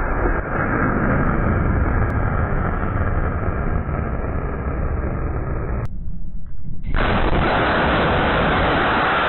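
Kalibr cruise missile's solid-fuel booster firing as the missile leaves a ship's vertical launcher: a loud, continuous rumbling rush. About six seconds in it briefly drops away and the noise of a second launch takes over, a little louder and brighter.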